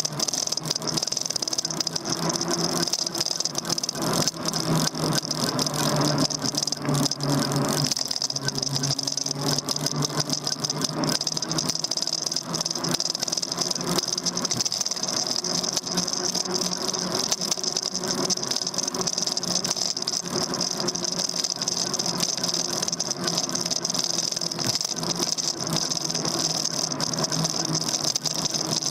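An e-bike in motion, heard from its handlebar-mounted camera: a steady motor hum with a constant high whine, under continual rattling and small knocks from the bike and the camera mount over the road.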